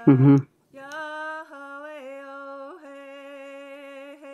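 A woman singing slow, long held notes in a steady voice, shifting pitch slightly between them. It is preceded by a short, loud vocal burst right at the start.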